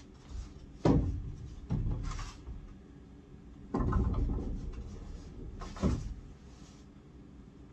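Wooden barn-style sliding door rolling along its overhead rail. It gives a series of knocks about a second in, then two seconds in, and a longer rumble about four seconds in as the door is pushed along, with a last knock near six seconds.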